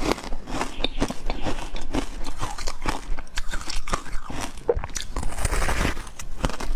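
Close-miked eating: crunchy bites and chewing, with many crackly clicks in quick, irregular succession.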